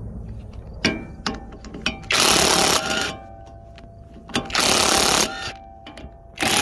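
Power tool run in three short bursts, with sharp metal clicks before and a metallic ringing after the bursts, typical of fastener work during a wheel bearing replacement.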